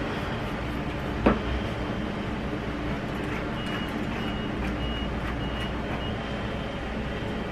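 Steady low mechanical rumble with a single sharp knock about a second in, and a run of short, high, evenly spaced beeps, about two a second, through the middle.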